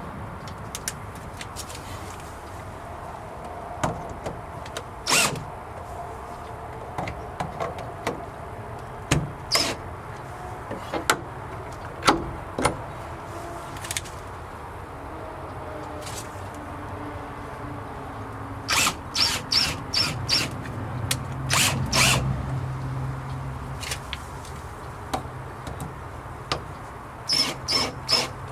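Scattered sharp clicks and knocks of metal hasp latch hardware being handled and worked on a wooden gate, with quick runs of clicks about two-thirds of the way in and again near the end. A faint low hum runs under the second half.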